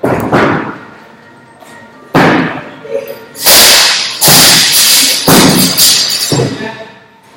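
Repeated heavy thuds and slams, with a ring after each: feet landing on a wooden plyo box during box jumps, and a loaded barbell with bumper plates dropped onto the rubber gym floor. The knocks come about once a second through the middle.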